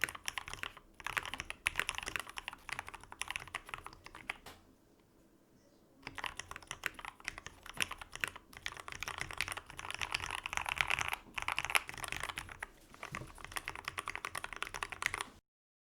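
Fast typing on a KBDFans KBD75V2 mechanical keyboard with lubed Gateron Black Ink linear switches on a brass plate and PBT keycaps: a dense run of clacking keystrokes, a pause of about a second and a half around five seconds in, then typing again until it stops abruptly shortly before the end.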